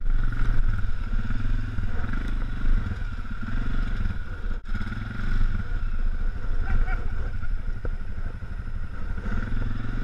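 ATV engine running at low speed over rough, muddy ground, its note rising and falling with the throttle.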